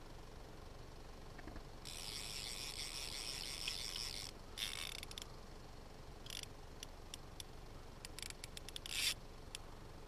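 Fly reel's click-and-pawl ratchet buzzing as fly line is wound in, in spurts: a run of about two seconds, then shorter runs and a string of single clicks, faint and high-pitched.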